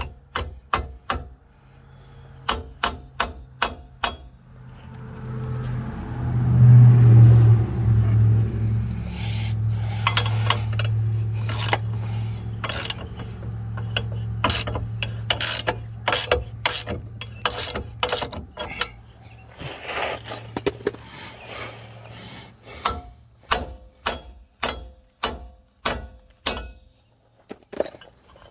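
Hand ratchet wrench clicking in runs of quick strokes while tightening the bolts of a new rear leaf spring hanger. A low droning hum swells in a few seconds in, is loudest early on, and slowly fades out before the clicking runs on alone near the end.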